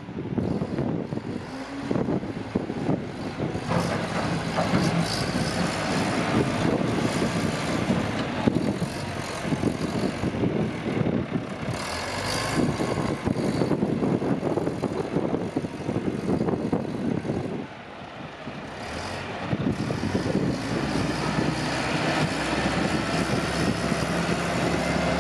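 Diesel engine of a Caterpillar 930 wheel loader running under throttle as the machine drives across the yard. It falls back for a couple of seconds about eighteen seconds in, then comes back up.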